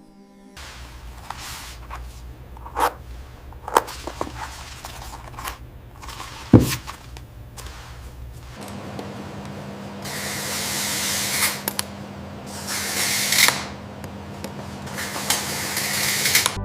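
Factory machinery: a low hum with scattered sharp clicks and one heavier knock. Then, after a change, a steady machine hum with repeated long bursts of hissing spray.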